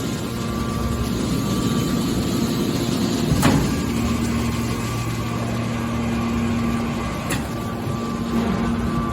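Horizontal hydraulic metal baler running: a steady machine drone with a hum, broken by two sharp knocks about three and a half and seven seconds in.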